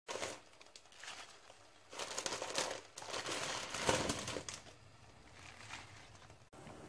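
Fresh spinach leaves crinkling and rustling as they are handled in a pot, in several irregular bursts a second or so long.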